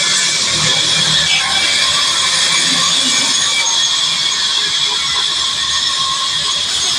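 Sawmill saw running steadily, a continuous high-pitched rushing noise.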